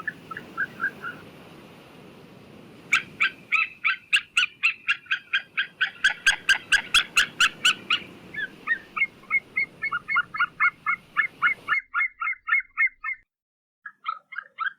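White-tailed eagle calling: long runs of sharp, rapidly repeated yelping notes, about five a second. One short run trails off at the start, a long one runs from about three seconds in to near twelve seconds, and another begins near the end. A low background hiss stops abruptly about twelve seconds in.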